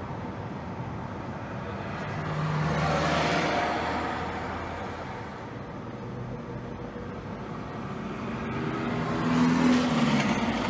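Car driving in city traffic, heard from inside the cabin: steady road and engine noise. It swells twice, about three seconds in and again near the end, with a deeper engine hum coming through each time.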